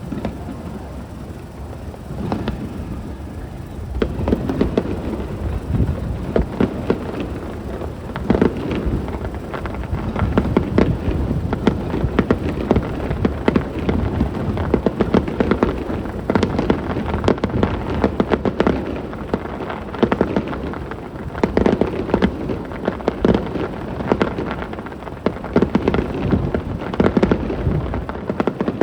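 Aerial fireworks bursting in a dense barrage, many booms and cracks overlapping without a break. The barrage grows heavier about four seconds in.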